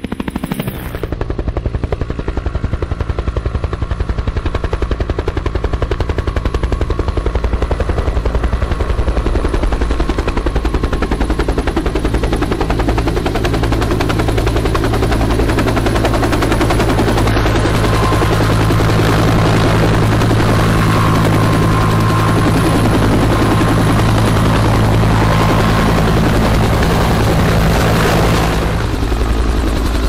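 Bell UH-1 'Huey' helicopter flying past, the rapid, steady thumping of its two-bladed main rotor over the turbine's whine.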